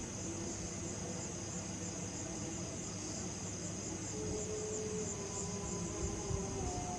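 Crickets chirping steadily in a continuous high, finely pulsing trill, over a low background rumble.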